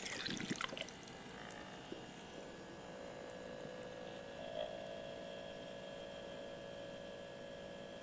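Small battery-powered pump of a tabletop desktop waterfall fountain, running on two AA batteries, humming steadily as it starts up, with a faint trickle of water running down the tiers. The hum gets a little stronger about halfway through.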